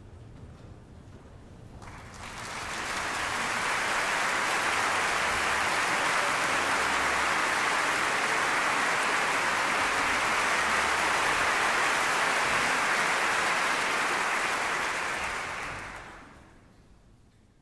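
Large concert audience applauding, swelling in about two seconds in, holding steady, then dying away near the end. It is the welcoming applause as the conductor takes the podium before the orchestra plays.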